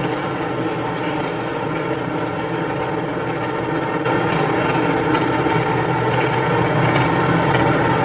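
Asphalt-paving machinery running steadily, a dense engine drone. It gets a little louder about halfway through.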